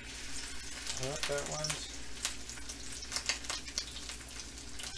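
Egg rolls sizzling in hot oil in a frying pan, a dense frying hiss with frequent crackles and pops. The sizzle picks up at the start as a second roll goes into the oil.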